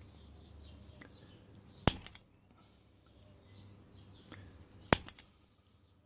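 Spring-loaded automatic center punch firing twice against the lock, each a sharp metallic snap followed by a small rattle of lesser clicks, about three seconds apart.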